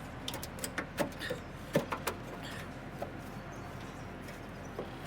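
Sharp clicks and knocks from hand tools and metal parts during work to take a Humvee fender off: several in the first two seconds, then a quieter stretch, then another knock near the end.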